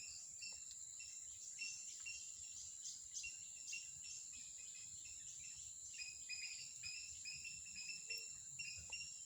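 Birds chirping with short repeated notes over a steady high-pitched insect drone, all faint.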